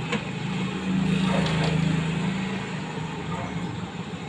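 A small engine runs steadily and grows louder for about a second and a half, starting about a second in. Light metallic clinks of a ladle in an aluminium pot of bakso meatballs sound over it.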